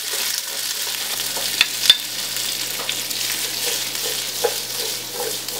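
Diced onion, green chilies and bell pepper sizzling in hot oil in a wok while being stirred and tossed with a wooden spatula. A couple of sharp knocks of the spatula against the wok come about a second and a half to two seconds in.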